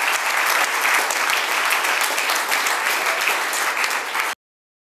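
Audience applauding steadily, cutting off suddenly about four seconds in.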